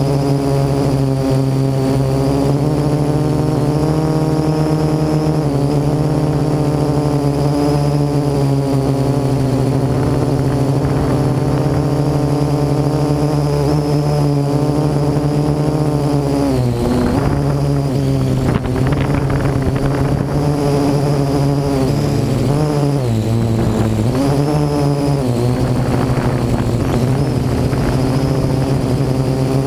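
Parrot AR.Drone quadcopter's rotors buzzing steadily in flight, heard up close from a GoPro mounted on the drone. The pitch dips and wavers a few times in the second half as the motors change speed while it manoeuvres.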